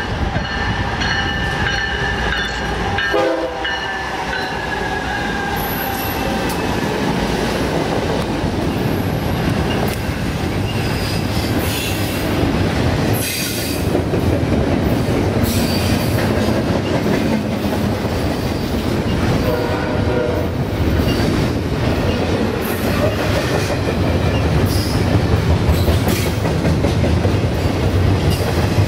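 BNSF diesel freight locomotives passing close by with the horn sounding for the first few seconds, its pitch dropping slightly. Then a double-stack container train rolls by with a steady rumble of wheels on rail, scattered clacks and brief high wheel squeals.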